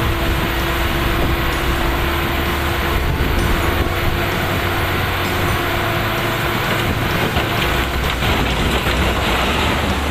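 Heavy diesel construction machinery running steadily, with a strong low rumble. A steady whine is heard through the first half.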